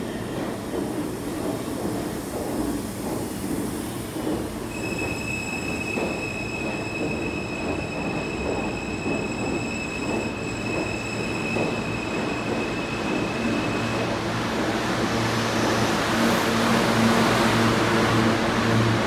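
An R160 New York City subway train departing slowly along the platform, its wheels and running gear rumbling steadily. From about five seconds in until about fourteen seconds, a steady high-pitched wheel squeal rings over the rumble. Near the end the running noise grows louder as the train gathers speed, and a low hum comes in under it.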